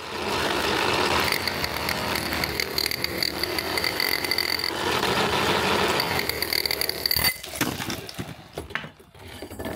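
Power drill boring a hole through a concrete block wall: a steady grinding run with a high whine, breaking into shorter, uneven sounds about seven seconds in.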